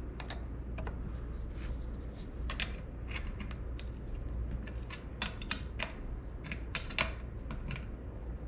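Small wrench turning a nut onto the bolt that holds a metal cam buckle to a kayak seat's frame: irregular light metal-on-metal clicks as the wrench is worked and repositioned, snugging the nut up without fully tightening it.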